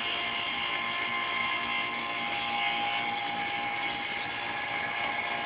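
Vacuum pump running with a steady motor whine, drawing the air out of a bell jar to lower the pressure inside.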